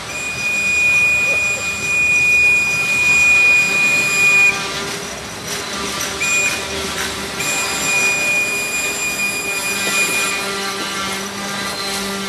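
Diesel locomotive air horn sounding from a train not yet in view: a long blast, a very short one, then another long blast, the pattern of a horn signal for a grade crossing.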